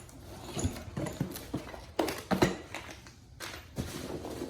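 Irregular knocks and clunks of tools and boxes being handled and set down on a table.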